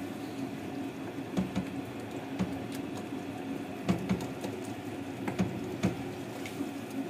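Metal spoon clacking against a pot as chicken keema loosened with milk and water is stirred. There are about seven scattered knocks over a low steady hum.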